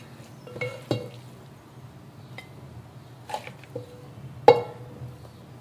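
Plastic spatula scraping and knocking against the inside of a metal cooking pot while scooping out scrambled egg, with about six clanks that set the pot ringing briefly, the loudest about four and a half seconds in. A faint steady low hum lies underneath.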